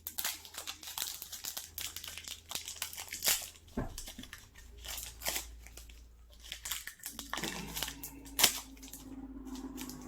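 Plastic snack wrapper crinkling and being torn open, a rapid run of crackles for the first few seconds and then more scattered ones, with one sharp click about eight seconds in.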